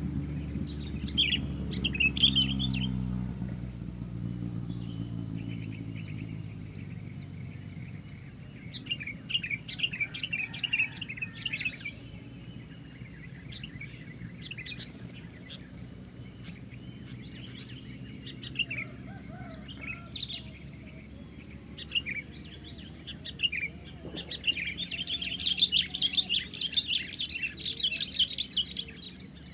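Sooty-headed bulbul (kutilang) singing in bursts of quick chirpy phrases: one about a second in, more around ten and twenty seconds, and a longer, louder bout near the end. A low droning hum fades out over the first few seconds.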